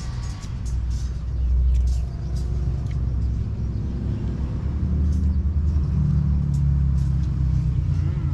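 Steady low rumble, loud throughout, with a few faint clicks over it.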